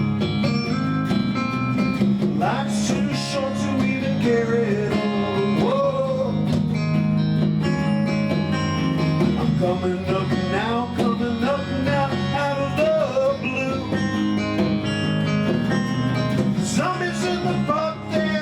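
A band playing a song: guitars over a steady bass. A lead melody that bends and slides in pitch comes in about two seconds in.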